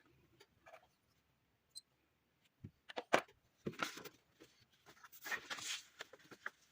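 Faint handling sounds of objects being moved about: a few sharp clicks about three seconds in, then two short spells of rustling.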